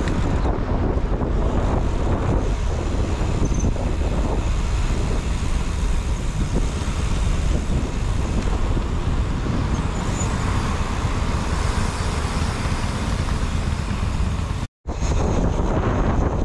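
Wind rushing and buffeting on the microphone while riding, mixed with road and traffic noise. The sound cuts out completely for a moment near the end.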